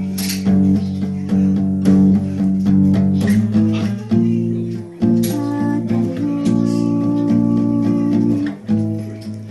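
Acoustic guitar strummed in chords that are left to ring, struck again every second or two.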